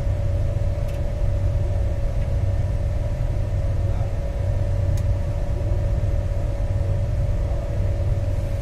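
Steady low rumble of a moving passenger train heard from inside the coach, with a steady hum running through it and two faint clicks, one about a second in and one about five seconds in.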